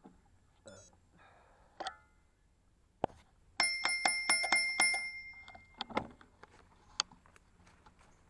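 Bicycle bell rung rapidly, about eight quick dings over a second and a half, a few seconds in. A few sharp knocks and clicks come before and after it.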